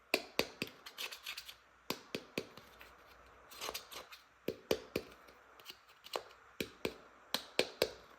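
Sharp clicks and taps of hard plastic toy parts being handled, in irregular clusters of a few at a time.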